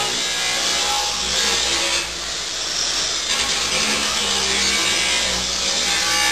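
Hand-held angle grinder cutting into the sheet-steel auger housing of a snowblower, a steady grinding whine with a brief dip in loudness about two seconds in, as damaged metal is cut out.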